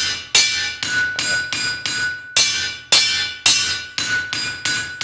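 Blacksmith's hammer striking the anvil in a quick working cadence, about three blows a second, each blow ringing out clearly and fading before the next. The hammer rebounds off the anvil to help keep the rhythm.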